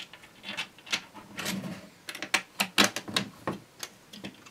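Irregular light clicks and taps of hands handling a 3D-printed plastic vise body and its small metal hardware while fitting another M4 bolt.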